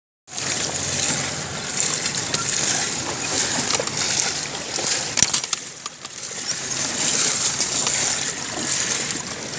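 Floodwater rushing and splashing in a steady, noisy wash, with a few sharp clicks about five seconds in.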